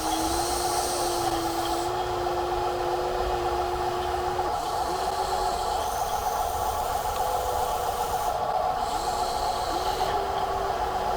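Small electric motor of a radio-controlled construction toy whining at a steady pitch, rising as it starts and dipping briefly and picking back up a few times, over a steady mechanical hum.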